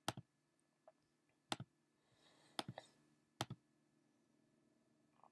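Computer mouse clicks: four sharp, separate clicks roughly a second apart, with a few fainter ticks between them, over a faint steady hum.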